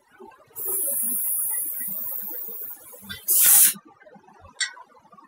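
Compressed-air spray guns on an automatic painting machine's arm, hissing. A steady high hiss lasts about two seconds, then a louder, fuller blast of air lasts about half a second, followed by a brief puff of air.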